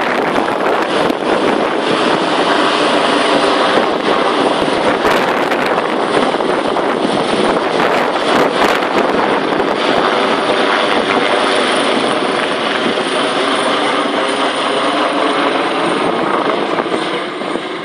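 AgustaWestland AW139 twin-turbine helicopter climbing away overhead after takeoff: a loud, steady rotor and turbine noise that begins to fade near the end.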